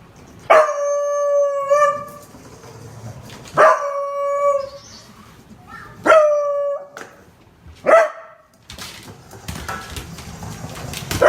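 Beagle baying: a run of loud, drawn-out howling barks a few seconds apart. Each starts sharply and holds a steady pitch for up to about a second and a half; the fourth is short, and a fifth begins right at the end.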